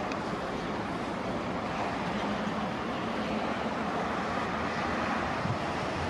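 NSW 42 class diesel-electric locomotive, with its EMD two-stroke V16 diesel, running steadily as it approaches: an even engine rumble with rail and train noise, no horn.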